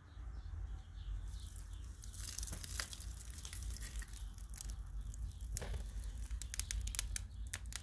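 Dry tinder crackling as it is dropped onto hot embers and catches fire. The sharp crackles begin about two seconds in and come thicker near the end, as a small flame flares up.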